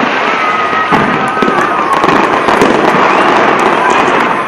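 Large fireworks display going off close by: a dense, continuous run of bangs and crackles.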